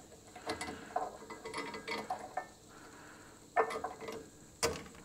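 Small metal clicks and clinks as a bolt is fitted by hand through the rose joint of an adjustable sway bar link, with two sharper clicks near the end.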